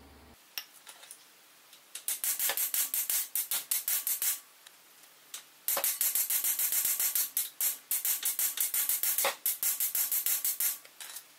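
Socket ratchet clicking in rapid runs as bolts on the front suspension of a Subaru Sambar kei truck are turned: a few single clicks, then two long runs of fast clicking with a short pause between them.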